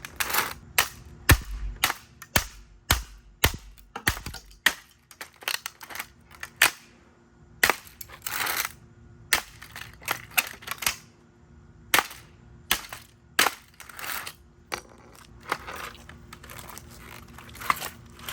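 Repeated sharp, irregular blows cracking and breaking the plastic body of a Dirt Devil Vibe stick vacuum, with a few short stretches of crunching and scraping between the hits.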